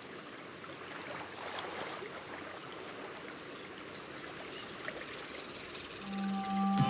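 Steady rushing of flowing water. About six seconds in, a low steady hum comes in with two fainter higher tones above it.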